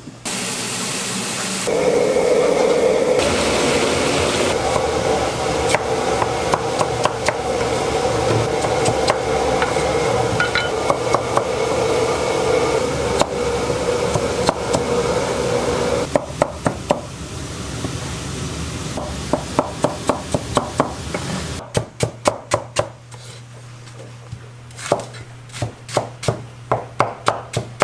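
Cleaver chopping peeled potatoes and onions on a plastic cutting board in quick, regular strokes. For about the first half the strokes are scattered under a steady kitchen hum. In the second half they come sharp and rapid.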